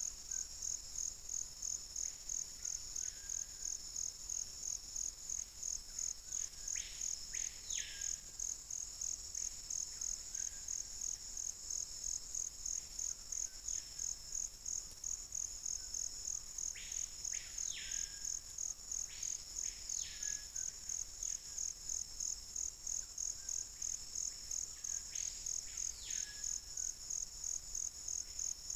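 Rainforest insect chorus: a steady, evenly pulsing high trill throughout, joined now and then by short whistled calls that rise and fall in pitch, sometimes two or three in quick succession.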